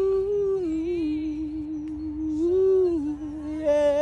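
A single voice singing a cappella, unaccompanied and wordless, holding long notes. One note swells up and falls back about two and a half seconds in.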